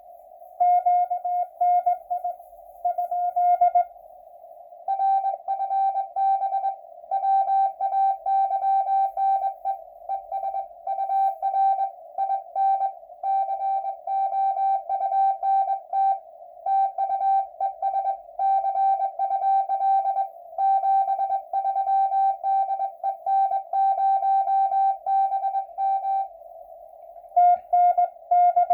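Morse code (CW) signals received on an 80-meter amateur radio receiver: an on-off keyed tone of dots and dashes over a narrow band of hiss from the receiver's filter. Two stations at slightly different pitches take turns: a short send, then a long one of about twenty seconds, then the first pitch again near the end.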